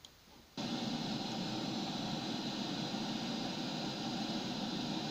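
Steady static hiss from a software-defined radio receiver (SDR# with a USB SDR dongle) tuned in the 460 MHz UHF relay band, cutting in abruptly about half a second in and then holding even.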